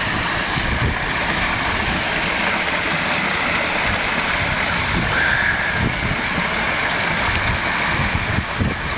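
Garden pond waterfall pouring over limestone rocks into the pond: a steady rush of splashing water, with wind buffeting the microphone underneath.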